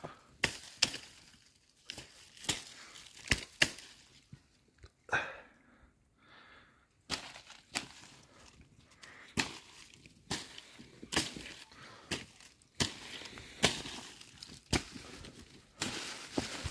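Crunching footsteps in fresh snow: sharp, crisp crunches at an unhurried walking pace, about one a second and somewhat irregular.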